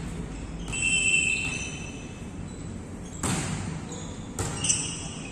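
A volleyball being hit, with two sharp hits about three and four and a half seconds in, and sneakers squeaking on the court floor, all echoing in a large sports hall.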